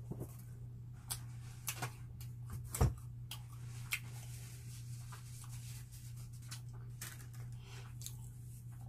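Small clicks and crackles of eating and handling bread, with one louder thump about three seconds in, over a steady low hum.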